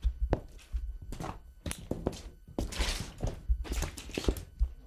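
Work boots walking across the wet floor of a flood-damaged house: a run of heavy footsteps thudding, with a couple of longer scuffing steps in the middle.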